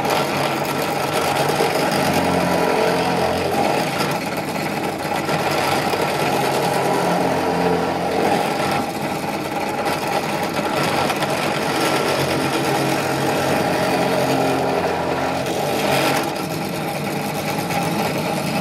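Benchtop drill press motor running steadily as a twist bit bores a row of holes into a turned spalted-birch hedgehog.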